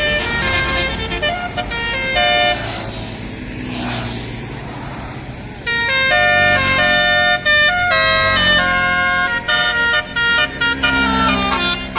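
Tourist bus's Basuri telolet horn playing a melody of held notes that step from pitch to pitch. The tune breaks off after about two and a half seconds for a quieter stretch of traffic noise, then starts again loudly at around six seconds and runs on.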